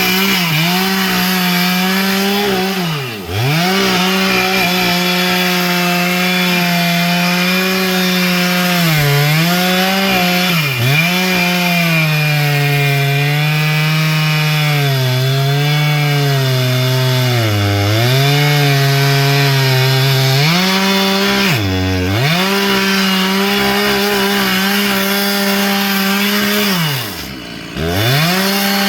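Chainsaw running at high revs while cutting wood, its engine pitch sagging repeatedly under the load of the cut. Twice the throttle is let off, once about three seconds in and again near the end, and the pitch falls steeply before climbing back to full speed.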